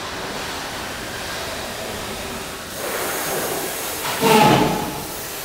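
Steady hiss of a large indoor concourse. A louder rush of noise swells up a little under three seconds in, and a brief loud noise with a short tone comes about four seconds in.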